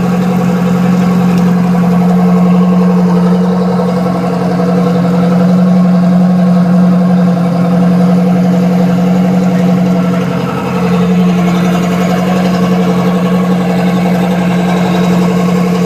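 Boat engine running steadily, with a brief dip in level about ten and a half seconds in.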